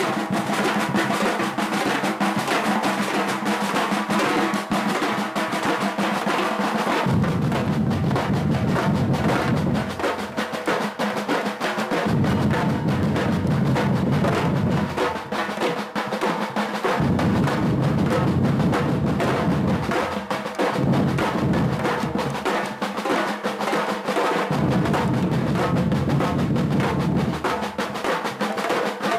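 Batuque percussion group drumming a fast, dense rhythm of snare-like and wood-block-like strikes. A deep bass-drum layer comes in about seven seconds in and drops in and out every few seconds.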